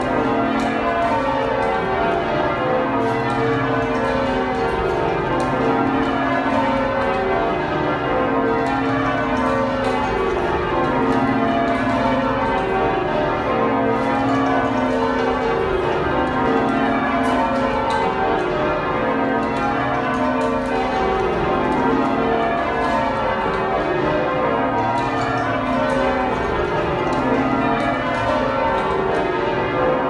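York Minster's heavy ring of twelve church bells, cast in 1925, change ringing in full circle. The bells strike one after another in an even, unbroken rhythm as the rows descend and repeat, heard from the ringing chamber below the bells.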